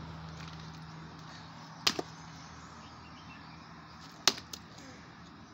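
An axe chopping firewood: two sharp strikes of the blade into a log, about two and a half seconds apart, each followed by a smaller knock.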